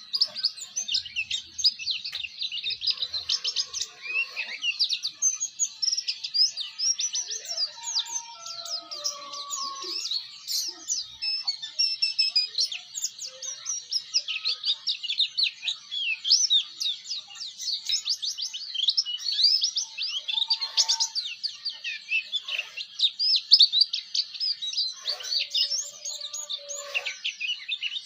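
A white-eye (pleci) singing a fast, unbroken twittering song of rapid high chirps (the 'ngeriwik' style), with a few lower whistled notes now and then.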